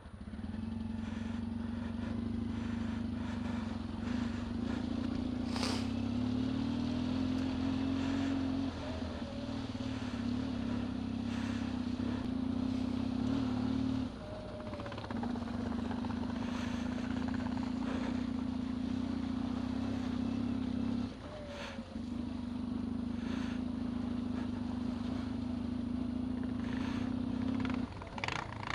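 Yamaha XTZ 750 Super Ténéré's parallel-twin engine running at steady low revs, its note rising a little about a quarter of the way in and easing off briefly twice, about halfway and about three-quarters through, with scattered clicks and knocks.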